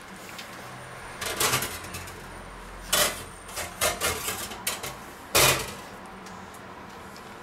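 A series of short knocks and clatters from things being handled on a kitchen counter, coming in several clusters, with the loudest about five and a half seconds in.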